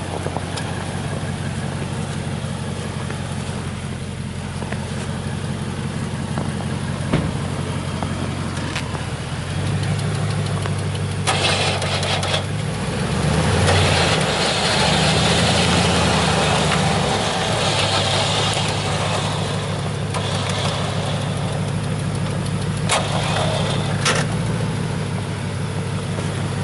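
Dodge Ram pickup's engine idling steadily, then running faster from about ten seconds in as the truck climbs out of snow and mud. A louder rushing noise lies over it for several seconds in the middle.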